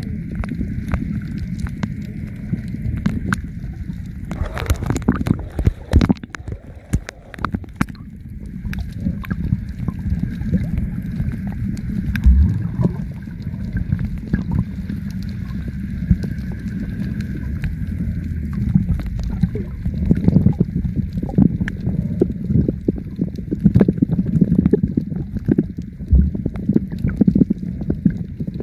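Muffled underwater sound picked up by a submerged camera: a steady low rush of moving water and bubbles, with scattered clicks and knocks, a cluster of them about five seconds in and more in the second half.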